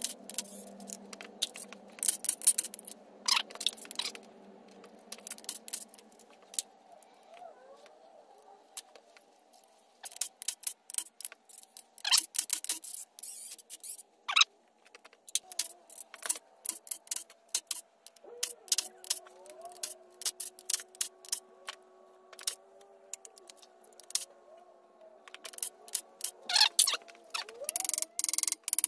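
Hand tools and metal engine parts clinking, clanking and scraping during hand disassembly of a Nissan VQ35DE engine, in irregular clusters of sharp strikes.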